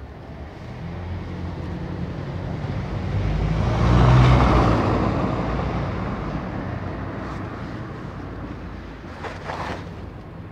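A motor vehicle driving past on the road, its engine rumble and tyre noise swelling to a peak about four seconds in and then slowly fading away.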